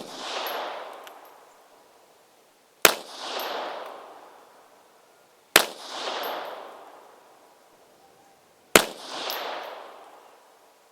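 Astra Model 300 pistol firing .380 ACP handloads: three single shots roughly three seconds apart, each followed by a long rolling echo.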